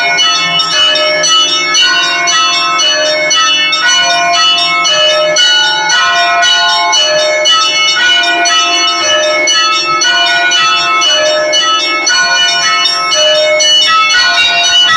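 Russian Orthodox church bells rung together in a continuous festive peal. Small high bells are struck in quick succession, several times a second, over the ringing of deeper, larger bells at many different pitches.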